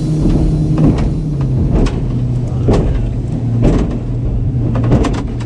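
Outboard motor on an aluminium Quintrex boat running at speed, its note dropping slightly a little over a second in and then holding steady. Sharp knocks about once a second as the hull slaps through the chop.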